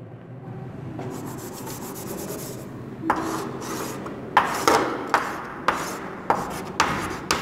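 Chalk scraping on a blackboard. A softer, longer stretch of scraping comes first, then from about three seconds in a run of short, scratchy strokes about two a second.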